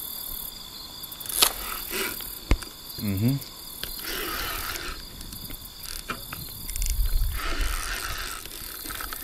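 Spinning reel being cranked in bursts while a hooked fish is played on a bent rod, with a few sharp clicks early on the reel. Crickets chirp steadily behind it.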